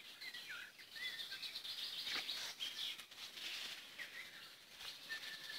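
Small songbirds calling and singing, a scatter of short high chirps and whistled notes, with one held whistle near the end. A few brief rustles are heard among them.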